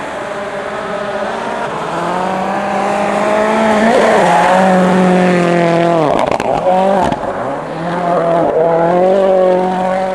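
Ford Focus WRC rally car's turbocharged four-cylinder engine at high revs, passing close by. The revs climb and hold, then drop sharply about six seconds in with a burst of crackles as the driver lifts off, and climb again.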